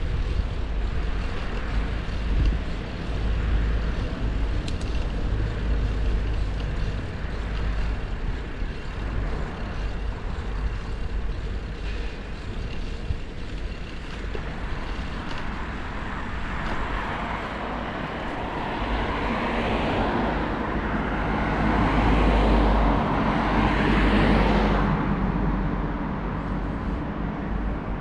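Street traffic with a steady low rumble. One vehicle passes close: it builds over the second half, peaks, and fades near the end.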